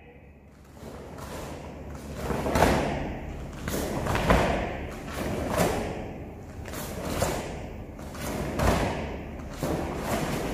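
Bare feet thudding on foam floor mats and a karate gi snapping with the punches and steps of a kata: a run of short thuds and crisp snaps, about one or two a second.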